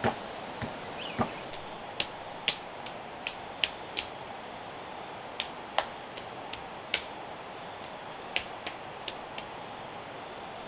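Irregular sharp taps and clicks, about fifteen in ten seconds, some much louder than others, over a steady background hiss and a faint high-pitched drone.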